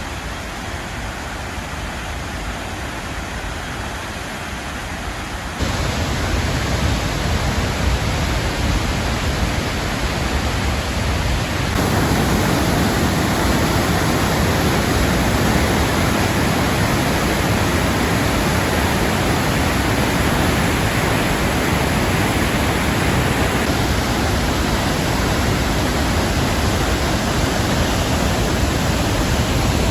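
A waterfall's steady rush of falling water, a dense even noise; it jumps louder about six seconds in and again about twelve seconds in.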